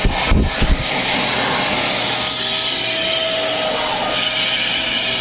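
Deerma handheld vacuum cleaner running steadily, its motor whine holding one pitch as it sucks up dust. A few low thumps come in the first second.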